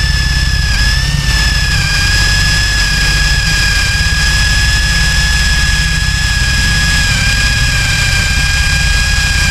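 WOSAI 20V WS-MD13 brushless cordless drill on second speed, running steadily with a high motor whine as a large wood bit bores into a wooden beam, the bit scorching the wood. The pitch dips slightly a few times as the bit bites.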